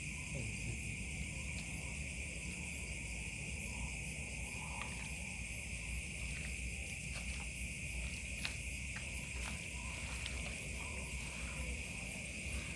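Steady chorus of night insects, a continuous high-pitched trill typical of crickets, with a few faint clicks of movement in the grass.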